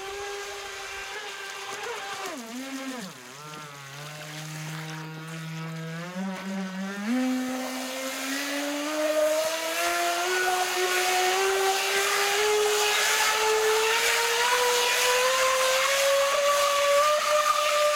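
RC jet boat's Traxxas Velineon brushless motor whining as it drives the jet. The pitch dips low a few seconds in, then climbs steadily along with the loudness for the rest of the stretch. The stock jet is too small for the motor, so it spins up easily under little load.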